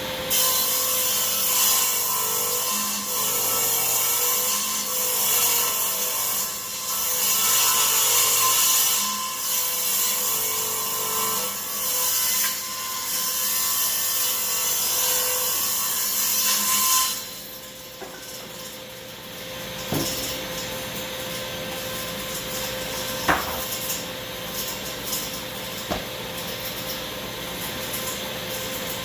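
Delta table saw ripping along the edge of a maple board for about 17 seconds, the blade's cut loud over the saw's steady hum. Then the saw runs free, with a few knocks.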